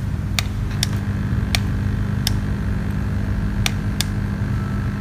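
Steady low hum from a hot-air rework station's air pump running, with six scattered sharp ticks as metal tweezers and the soldering-iron tip touch the IC pins.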